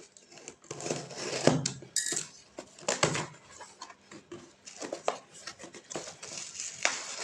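Hands handling and opening the packaging of a replacement phone LCD screen: irregular rustling and scraping with small knocks and clicks, the sharpest about one and a half and three seconds in.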